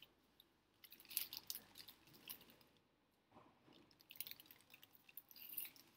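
Faint crinkling of a plastic snack packet being handled and snacks being crunched, in short scattered bursts.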